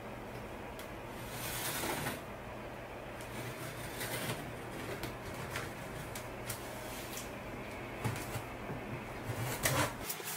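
Scissor blade slitting the packing tape along the seam of a cardboard box: scratchy scraping with small clicks and taps on the cardboard, a longer rasp about two seconds in and a quick run of clicks near the end. A steady low hum lies underneath.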